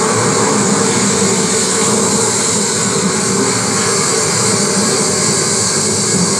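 Loud, steady rushing noise like a jet or strong wind, even throughout with no rhythm or change in pitch, played over the stage sound system as part of the performance.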